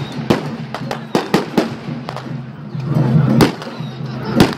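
Firecrackers going off in sharp, irregular bangs, several close together, over a steady low hum.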